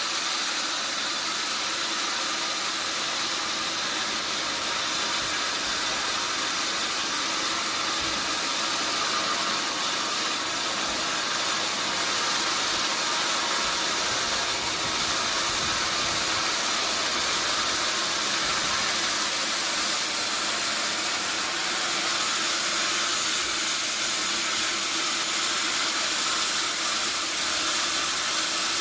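Sawmill machinery running with a steady high hiss that holds at one level throughout.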